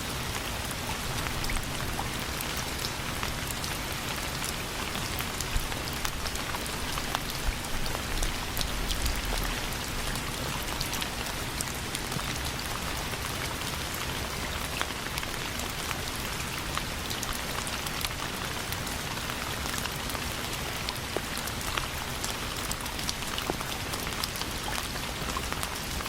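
Steady rain falling, with many small drops pattering on a surface, as a continuous even hiss.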